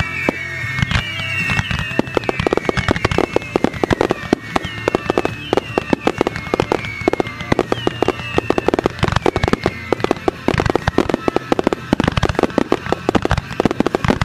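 A dense, rapid barrage of fireworks, with many aerial shells bursting and crackling in quick succession. Show music plays underneath and fades out about nine seconds in, while the bursts keep coming.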